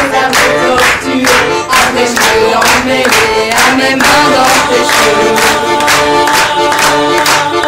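Piano accordion playing held chords in a lively live song, over a steady beat of about two or three strikes a second.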